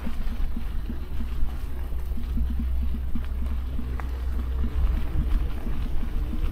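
Wind rumbling on the microphone, steady and deep, over a stream of small irregular knocks and bumps.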